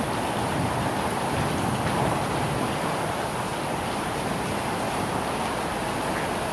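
Steady rain from a thunderstorm, an even hiss with no thunderclap.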